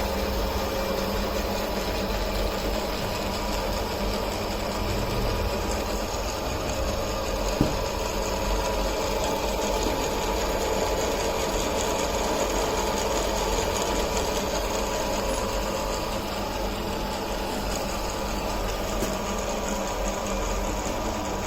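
Multi-spindle drilling machine running with a steady mechanical hum, and a single sharp click about seven and a half seconds in.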